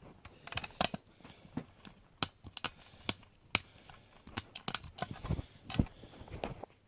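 Irregular light clicks and taps of small parts of a spring-powered airsoft pistol being handled and fitted back together.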